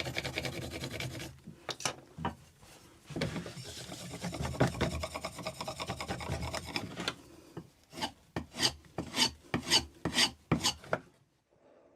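Chisel blade rubbed back and forth on a wooden block charged with green honing compound, honing the edge. Long continuous rubbing gives way past the middle to quick separate strokes, about three a second, which stop near the end.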